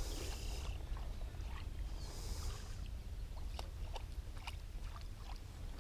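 Water swishing briefly twice as a glide bait is worked on the surface beside a boat, over a steady low rumble, with faint scattered ticks.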